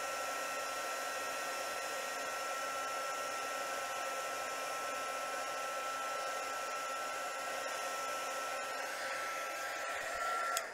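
Embossing heat tool blowing hot air steadily, a rushing noise with a thin high whine, melting clear embossing powder on a stamped card. It cuts off at the end.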